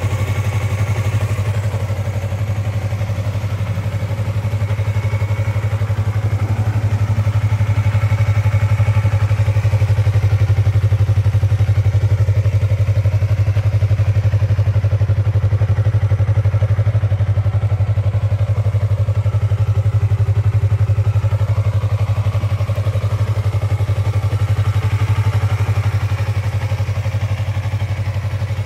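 Yamaha YZF-R25's parallel-twin four-stroke engine idling steadily through its stock muffler, with no revving; slightly louder in the middle stretch.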